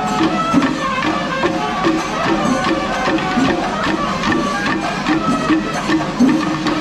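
Traditional music with a dense, steady run of percussion strikes, including cymbal-like hits, under a sustained melody line.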